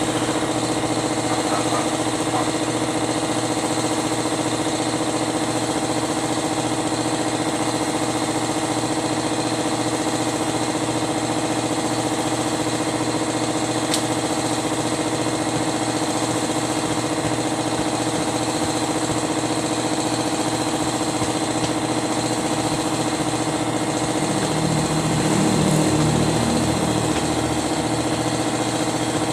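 An engine running steadily at an even speed, a continuous drone that swells slightly about 25 seconds in.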